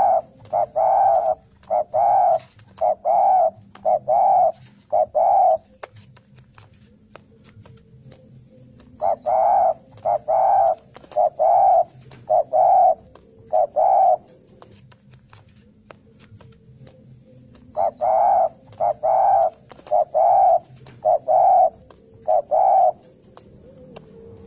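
Spotted dove (derkuku) cooing in three bouts of about six short coos each, roughly one a second, with pauses of a few seconds between bouts. This is the male's challenge call, given to seek out a rival.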